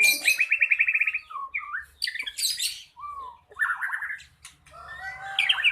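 White-rumped shama singing a varied song: a fast trill of about a dozen even notes, then whistled glides, a harsh scratchy phrase and more warbling phrases.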